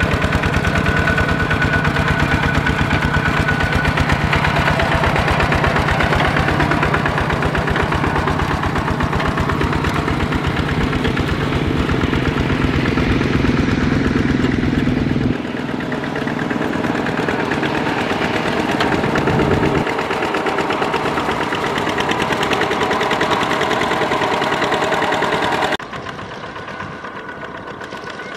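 Single-cylinder diesel engine of a Kubota RT120 walking tractor running steadily under load as its cage wheels churn a flooded paddy, a fast even chugging. The sound drops suddenly a little past halfway and again near the end.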